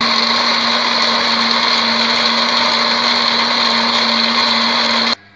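Electric blender's small grinding jar running at full speed, grinding a wet spice paste with a little water: a steady, loud motor whir that starts as the button is pressed and cuts off suddenly about five seconds in.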